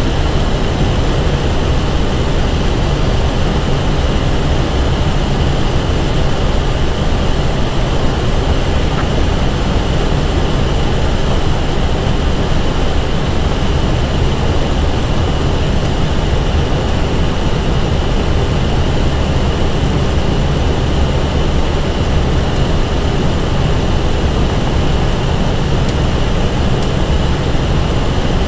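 Steady flight-deck noise inside an Airbus A320 cockpit on approach: a continuous rush of airflow and engine drone with a steady high whine running through it.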